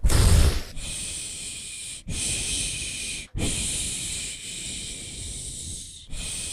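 A child's mouth-made wind sound: a hard puff of breath on the microphone, then long hissing 'shhh' blows in several stretches, each cut off by a short sudden gap.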